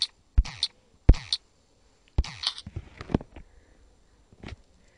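About eight or nine sharp taps of fingers on a tablet's touchscreen, uneven and a fraction of a second apart, as a search word is typed on the on-screen keyboard.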